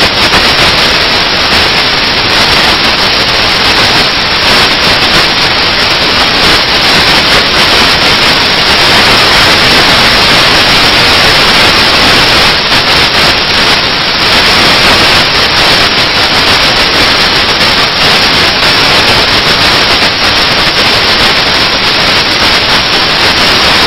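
Loud, steady static hiss like white noise, with no speech or music heard through it.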